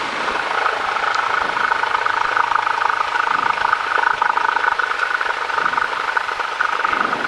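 Cessna 172's piston engine and propeller running steadily at low power, heard from inside the cockpit.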